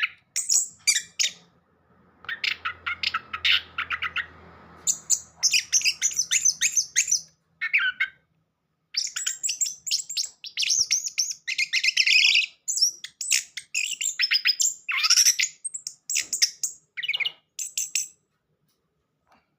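Orange-headed thrush singing a long, varied song of rapid chirps, trills and whistled phrases, broken by short pauses.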